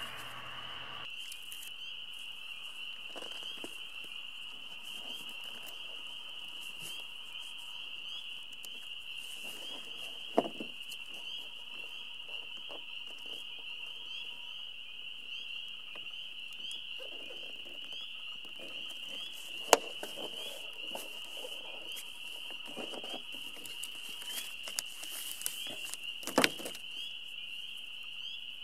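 A steady, high-pitched chorus of small calling animals runs throughout. Over it come occasional sharp clicks and soft rustles of hands handling tape and the sail's film and pockets, the loudest about ten, twenty and twenty-six seconds in.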